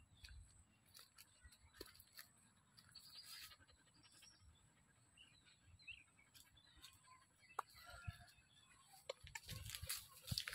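Near silence: faint outdoor ambience with a few soft clicks and faint chirps, turning into louder rustling near the end.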